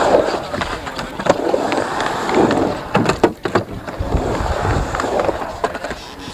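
Uneven scraping in swells, broken by sharp knocks and clicks, from hands-on work building a chicken ramp.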